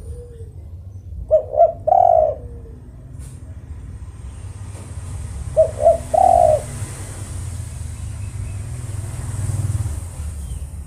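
Spotted dove cooing twice, each call two short coos followed by a longer, drawn-out coo, over a steady low hum.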